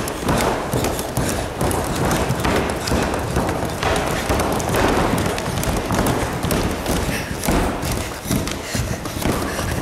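Children's karate training on a gym floor: a dense, continuous jumble of thuds and taps, with voices mixed in.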